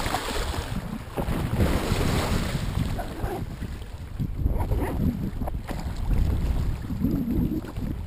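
Water splashing and churning against the side of a plastic fishing kayak as feeding dolphins thrash alongside, easing after the first few seconds. Heavy wind buffeting on the microphone, with a few light knocks in the second half.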